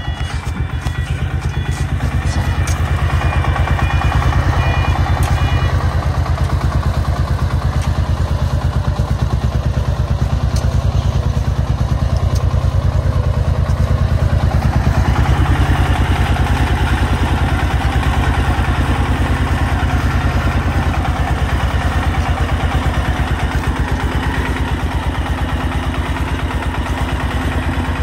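Công nông farm truck's diesel engine chugging steadily under load with a fast, even pulse, as it hauls a heaped bed of soil over a rough field track.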